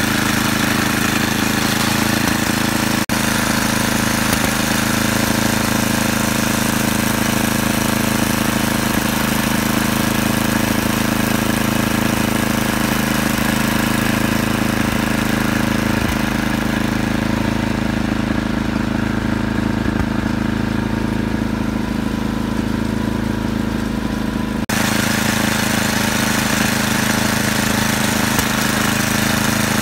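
Gasoline snowblower engine running steadily under load while clearing deep snow, with two momentary breaks in the sound, about three seconds in and again about five seconds before the end.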